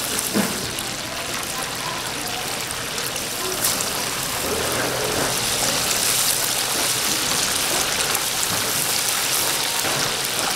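Food deep-frying in a vat of hot oil: a steady sizzle with scattered small crackles.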